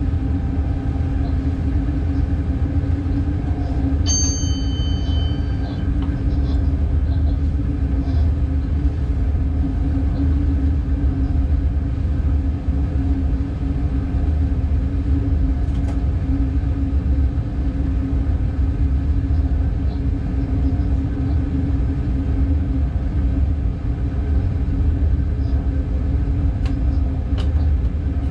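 Class 186 TRAXX electric locomotive under way, heard from inside its cab: a steady rumble of the running train with a constant hum. About four seconds in, a short high beep sounds for a second and a half.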